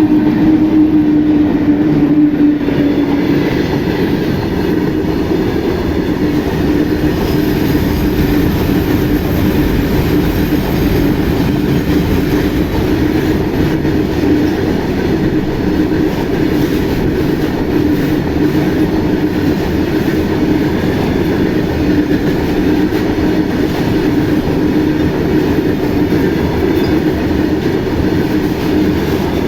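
A freight train passing, its wagons running over the rails with a steady loud noise.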